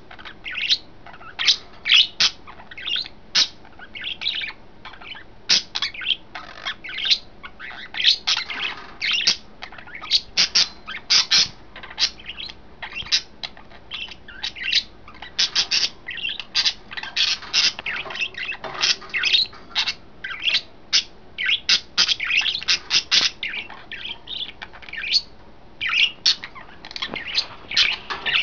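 Pet budgerigars chirping and chattering, a busy, continuous stream of short, rapid chirps and warbles with occasional harsher squawks.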